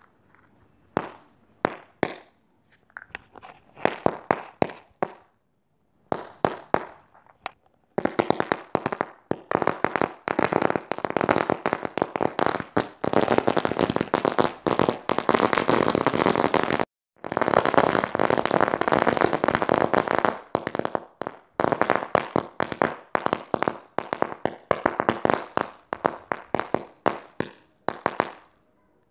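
A heap of paper toy-gun roll caps burning, the caps going off in a chain of sharp pops. There are scattered pops for about the first eight seconds, then a dense continuous crackle for about twelve seconds with one brief break, and it thins back to scattered pops that stop near the end.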